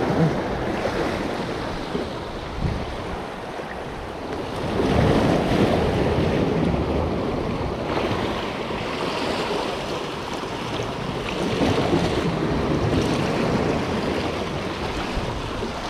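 Sea waves washing with wind buffeting the microphone, swelling louder about five seconds in and again near twelve seconds.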